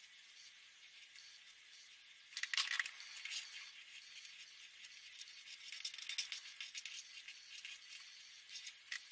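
Marker pen strokes scratching on paper, faint, getting busier from a little over two seconds in.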